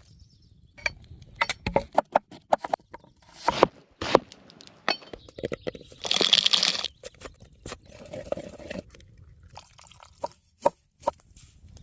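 Cooking sounds: a string of sharp knocks and clinks of utensils and cookware, with a hiss lasting about a second midway through.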